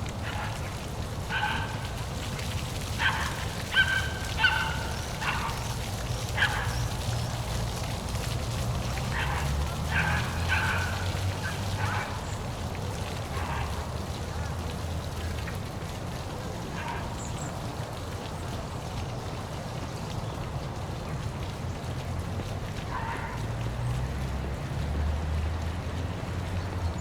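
Steady rush of a waterfall with a low rumble beneath it, and short repeated bird calls, many in the first half and one more near the end.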